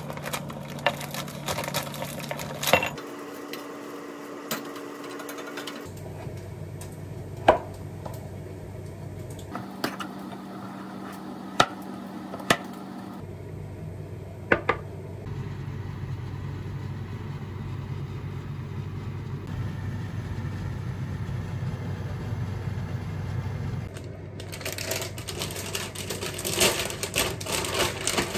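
Household handling sounds: scattered sharp knocks and clicks of objects being handled and set down over a steady low hum, with the background changing abruptly several times.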